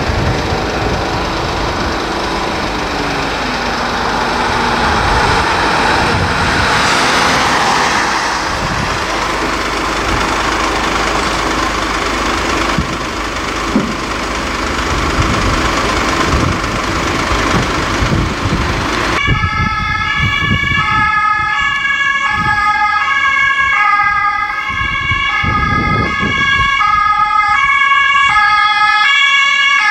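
A Mercedes-Benz Sprinter ambulance drives past with engine and road noise. About two-thirds of the way in, a German two-tone emergency siren takes over, switching steadily between a high and a low tone.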